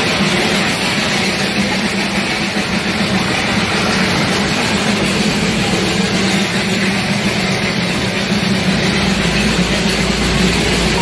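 Darjeeling Himalayan Railway B-class steam locomotive hauling the toy train uphill, heard from the coaches: a steady, loud mix of the engine working, steam and running gear. A low rumble comes up near the end.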